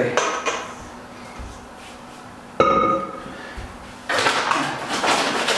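A stainless steel mixing bowl set down with a clang, ringing briefly, about two and a half seconds in. About a second and a half later a loud, steady rustling starts and keeps on.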